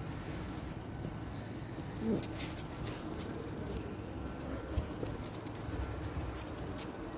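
Footsteps and a small puppy's paws tapping and scuffing on pavement, as scattered light taps over a steady low background, with one brief high squeak about two seconds in.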